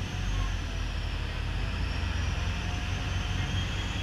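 Passenger boat under way: a steady low engine drone with water rushing and splashing along the hull.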